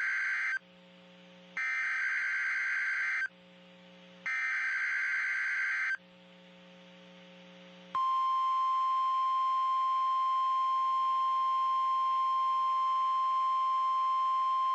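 NOAA Weather Radio Emergency Alert System activation: the end of one SAME digital header burst and two more, each a harsh warbling data squeal under two seconds long with about a second's pause between. About eight seconds in, the steady 1050 Hz Weather Radio alert tone starts, one continuous high beep that holds, signalling that an alert message, here a tornado watch, follows.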